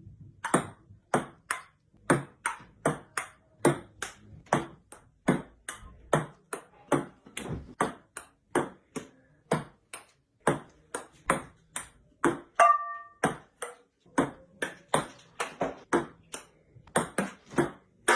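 A long run of sharp taps, about two to three a second and not quite evenly spaced, with one short pitched squeak about two-thirds of the way through.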